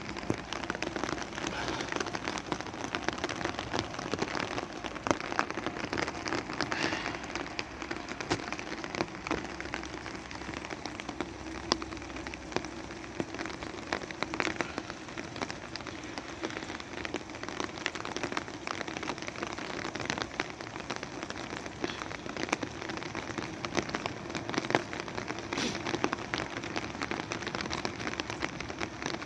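Steady rain falling, with many drops ticking close by.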